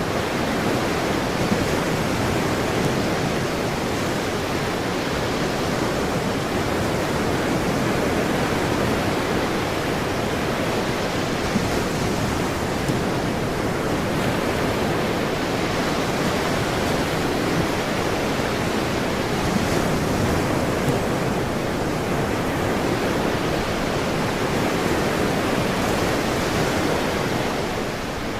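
Ocean surf: a steady, unbroken rush of waves breaking on a shore.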